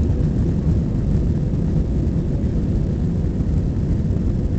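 Airbus A320-214's CFM56 jet engines at takeoff power, heard from inside the cabin during the takeoff roll as a loud, steady low rumble.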